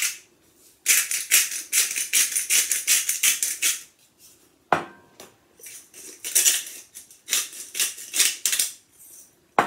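Hand-twisted salt and pepper mills grinding: two bursts of rapid rattling clicks, from about one to four seconds in and from about six to nine seconds in, with a single knock between them.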